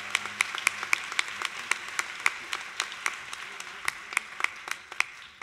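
Audience applauding, with dense clapping that thins out and dies away near the end.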